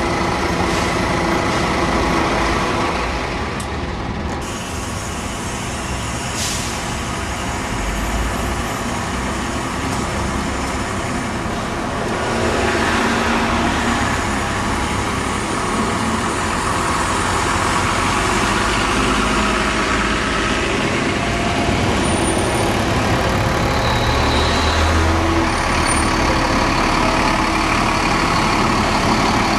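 Diesel buses running and passing in street traffic, with a steady engine and road noise. A few brief high squeals come near the end.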